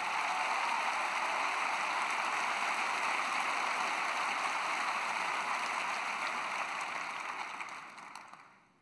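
Large theatre audience applauding, a dense steady clapping that dies away near the end.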